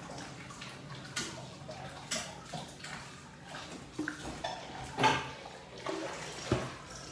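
Liquid poured from a plastic pitcher into a drinking glass, with a metal spoon clinking against glass and a bowl several times; the loudest clink comes about five seconds in.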